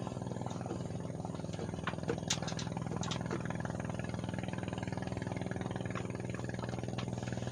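Engine running steadily at an even pitch, with a few light clicks and taps about two to three seconds in.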